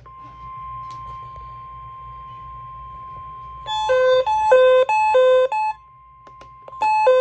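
NOAA Weather Radio warning alarm tone: a steady, single high tone at about 1050 Hz. Over it a receiver's louder three-note alert chime sounds three times in a row from about four seconds in, then starts again near the end.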